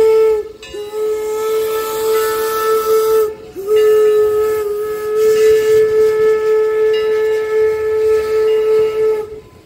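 Steam locomotive whistle blown at one steady pitch in three blasts: a short one ending about half a second in, one about two and a half seconds long, then a long blast of about five and a half seconds that cuts off near the end. Steam hisses behind it.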